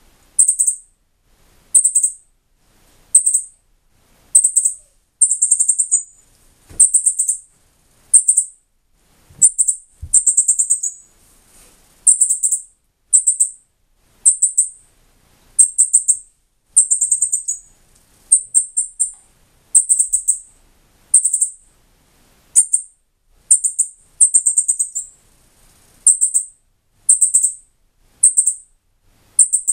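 Young northern cardinal giving short, high begging calls over and over, about one a second, some single chips and some longer fluttering ones: the hungry bird asking to be fed.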